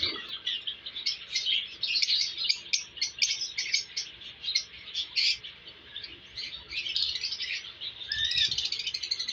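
Small parrots chirping: a rapid, continuous run of short high chirps, with one longer sliding note near the end.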